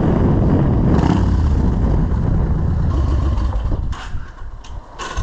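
Yamaha Road Star XV1600 air-cooled V-twin motorcycle engine running loud and low, dropping off about three and a half seconds in, with a couple of sharp clicks near the end.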